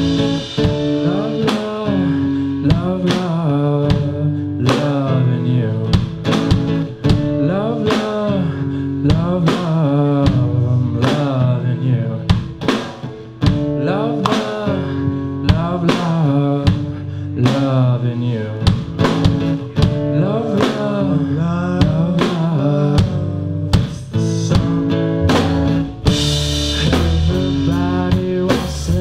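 Live rock band playing a bluesy song: a drum kit keeping a steady beat on snare and bass drum, under strummed acoustic guitar and electric guitar, with a melody line that bends between notes. The cymbals get brighter and busier near the end.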